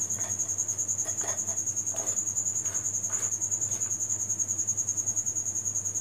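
A cricket chirping steadily, a high, rapid, evenly pulsing trill, with a few faint scrapes of a silicone spatula stirring dry flour in a steel plate in the first half.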